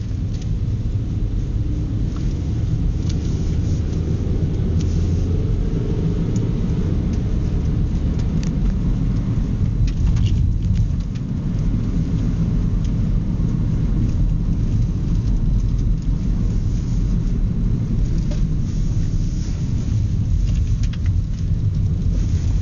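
Car driving along a country road, heard from inside the cabin: a steady low rumble of engine and road noise.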